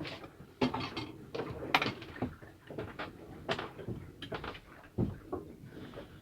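A string of irregular knocks and clattering, like hard objects being handled and set down.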